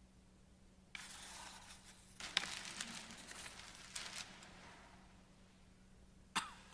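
Faint rustling and handling noise with a few soft knocks, then a single sharp click near the end, over a steady low electrical hum.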